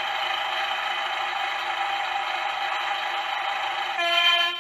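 A toy double-decker bus's electronic sound effect, a steady engine-like buzz from its small speaker. About four seconds in it changes to a cleaner, horn-like tone.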